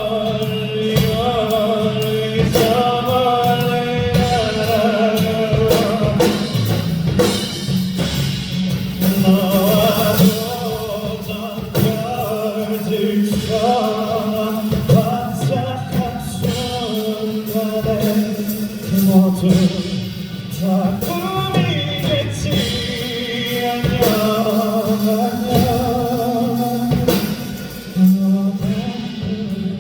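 A live pop ballad: a man sings a long held, sliding melody over steady instrumental accompaniment.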